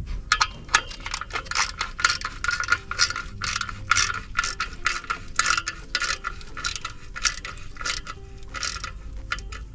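Hand ratchet wrench clicking in quick runs as it is swung back and forth, tightening the bolts of a new clutch pressure plate onto the flywheel.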